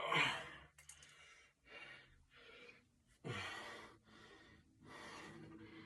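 A man breathing hard and fast, out of breath from bodyweight exercise: short, loud breaths in and out about once a second, the strongest at the start and about three seconds in.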